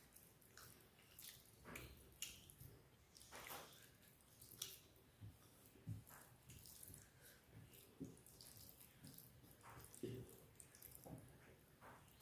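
Faint, wet eating sounds: chewing and lip smacks coming as short, irregular clicks.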